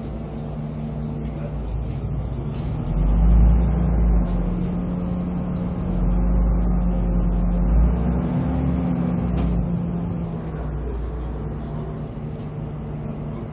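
Volvo B340M bus's DH12E horizontal six-cylinder diesel running steadily. It grows louder with a deep drone about three seconds in, holds to about ten seconds, then eases off.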